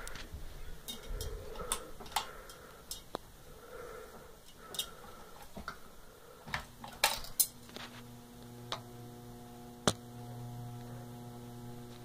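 Ceiling fan motor starting up and humming steadily from about halfway through. Scattered sharp clicks come before it and during its first seconds, the loudest pair just after the hum begins.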